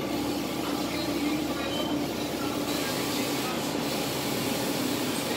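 Large-format sublimation inkjet printer running, its print-head carriage moving across the transfer paper, with a steady whirring hum from its motors and fans.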